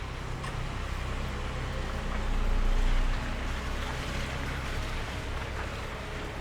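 Steady rain falling, an even hiss, with a deep low rumble that swells up and dies away about halfway through.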